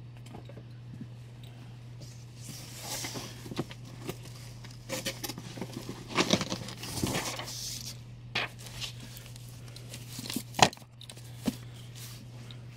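Comic books and the cardboard box they came in being handled: irregular paper and cardboard rustling, with a few sharp knocks, the loudest about ten and a half seconds in. A steady low hum sits underneath.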